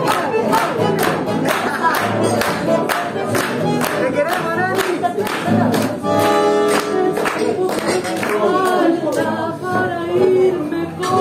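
A woman singing a tango live, backed by bandoneon and guitar. Through the first half a sharp steady beat runs at about three a second. Around the middle she holds one long note.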